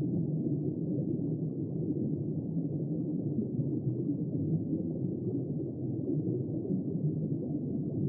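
Muffled underwater ambience: a steady, low rumbling wash of water noise with nothing above the low and middle range, and no distinct clicks or calls.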